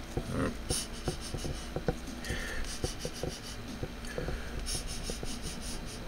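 Light rustling and scraping against paper, with scattered small ticks, as fingers handle thin wires and a small brass laser diode module on a sheet of paper.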